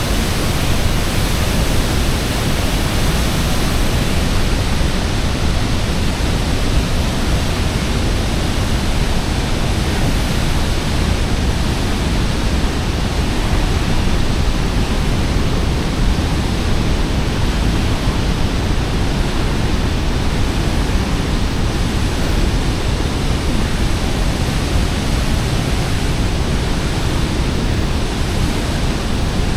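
Large waterfall rushing: a loud, steady, dense noise of falling water, heaviest in the low end.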